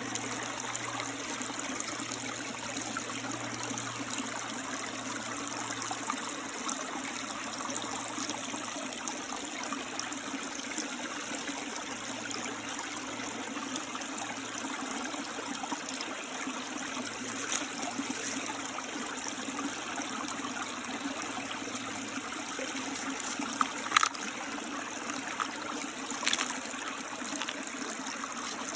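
Small woodland creek running and trickling over rocks, a steady even rush of water. A few short sharp clicks stand out over it, the loudest about two-thirds of the way in.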